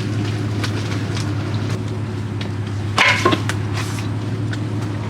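Logs being rolled off a load, knocking together with one sharp wooden knock about three seconds in and a few fainter clicks, over a steady low hum.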